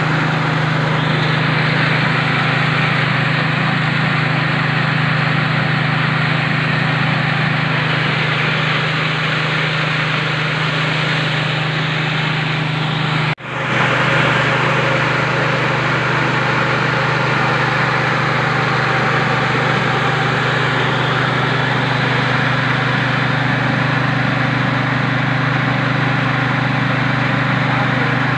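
Mini rice mill (KD 820 Pro selip mini) running steadily with a loud, even drone as rice is milled. The sound cuts out for an instant about halfway through, then carries on unchanged.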